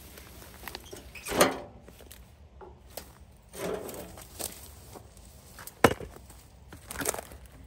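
A few separate knocks and clunks as a chainsaw is lifted out of a wheelbarrow and set down on a wooden tree stump, the sharpest knock about six seconds in.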